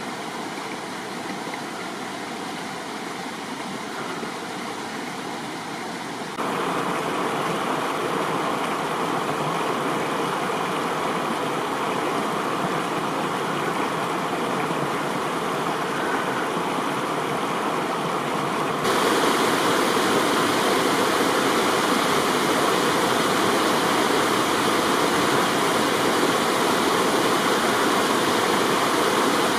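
Spring-fed stream water rushing and splashing over rocks in a steady rush. It gets suddenly louder about six seconds in and again about nineteen seconds in.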